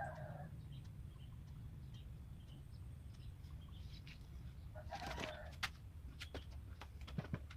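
A chicken clucking in a short burst about five seconds in, over a low steady hum, with a few sharp clicks after it.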